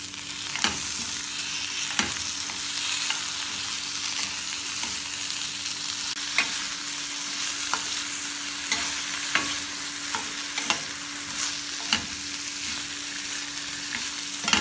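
Onion, tomato and cashew pieces sizzling in oil in a stainless steel kadai while a spatula stirs them. The spatula scrapes and knocks against the pan at irregular intervals of about a second.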